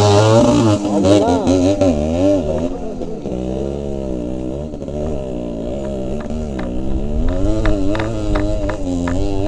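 Two-stroke motorcycle engine revving up and down again and again under load while climbing a loose rocky trail. A run of sharp ticks joins in over the last few seconds.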